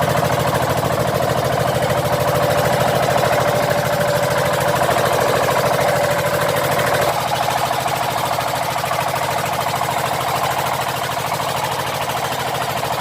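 Fishing boat's engine running steadily, with a fast knocking beat. A higher tone in the engine noise drops out about seven seconds in.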